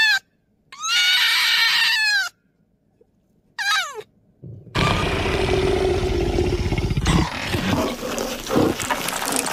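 Red fox giving high, whining screams, three calls that each rise and fall, the last short and dropping steeply. About five seconds in, a long rough, noisy sound with a low rumble takes over.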